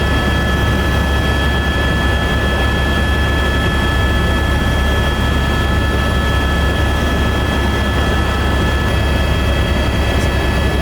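Helicopter in flight: a steady low drone from the rotor with a constant high turbine whine over it.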